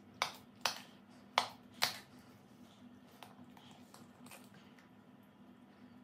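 A metal spoon clicking against a glass baking dish four times in the first two seconds as it digs into baked polenta, followed by a few faint taps.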